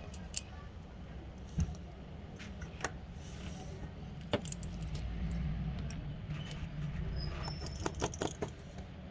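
Scattered small clicks and taps of tweezers and small metal parts being handled while an iPhone 7 Plus is reassembled, with a quick run of several clicks near the end, over a low steady hum.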